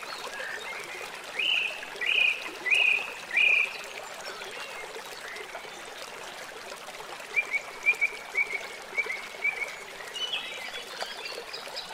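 Bird calls over a steady background hiss: four loud arching notes spaced a little over half a second apart, starting about a second in, then a quicker run of shorter chirps a few seconds later.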